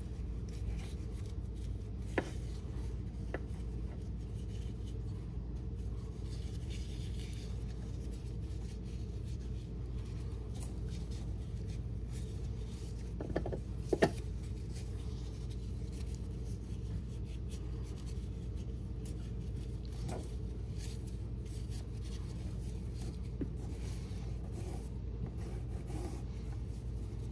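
Nylon webbing strap rubbing and sliding through a plastic seatbelt buckle as it is fed through by hand, with a few sharp plastic clicks, the loudest about fourteen seconds in. A steady low hum runs underneath.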